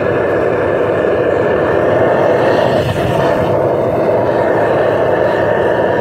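Propane burner of a FASTTOBUY 6 kg melting furnace burning steadily, a loud, even rush of gas flame firing into the furnace.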